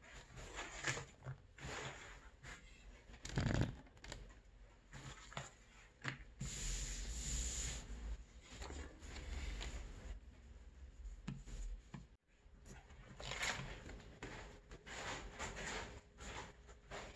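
Stiff crocodile-skin leather being rustled, flapped and slid by hand across a steel worktable, with short crackles and taps, one heavy thump about three and a half seconds in, and a longer sliding hiss around six to eight seconds.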